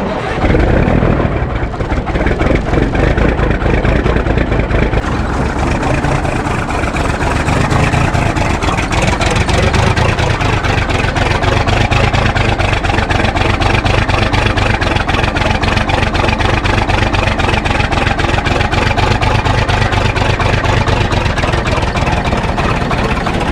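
Cummins 855 diesel engine turning over and trying to start on a cold day, not wanting to start. The engine has been worn out by sucked-in dirt.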